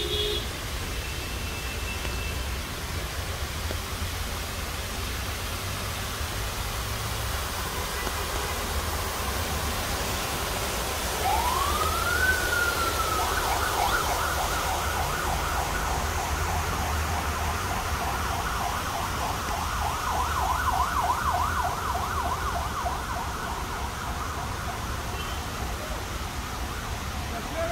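Water spilling over a stone fountain wall with a steady rush. About eleven seconds in, an emergency vehicle siren winds up in pitch, then switches to a fast yelp that goes on for more than ten seconds and stops near the end.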